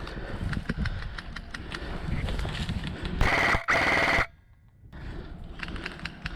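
Airsoft gun firing two short full-auto bursts a little past halfway, each one cut off sharply, over light clicking and rustling from footsteps and gear.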